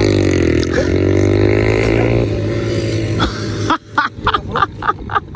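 Motorcycle engine running with a steady drone whose pitch dips and then rises, cutting off suddenly a little under four seconds in.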